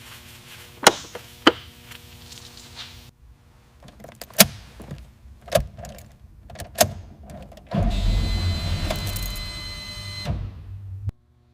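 Car fittings being worked during assembly: a series of sharp clicks and knocks, then about eight seconds in an electric motor on the car whirs steadily for about two and a half seconds before it stops.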